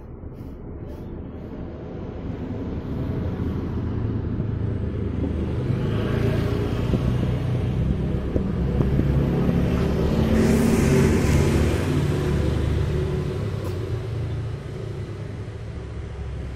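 A motor vehicle's engine rumbling past nearby, swelling steadily to its loudest about ten to twelve seconds in, then easing off.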